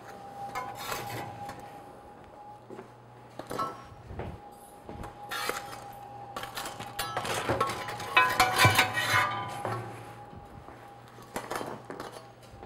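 Metal clinks and knocks of an oven rack and a wire cooling rack as baked baguettes are taken out of the oven and set down, with a busier clatter about two-thirds of the way through.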